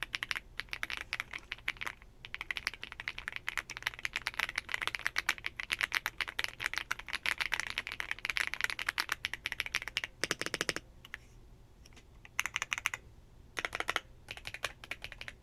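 Typing on a Lingbao K98 96% mechanical keyboard: fast, continuous key clacks for about ten seconds, then a few short bursts of keystrokes with pauses between. The owner calls the sound creamy.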